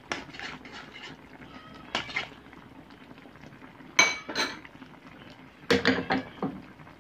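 Metal ladle clinking against the cooking pan: a run of light clicks, a sharp ringing clink about four seconds in, and a quick cluster of clinks near the end.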